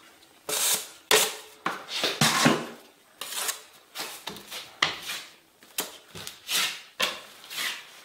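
Steel taping knife scraping setting-type joint compound (Sheetrock 90 hot mud) out of a plastic bucket and off a mud hawk, and spreading it onto a drywall seam: a quick run of short metal-on-mud scrapes, about two a second.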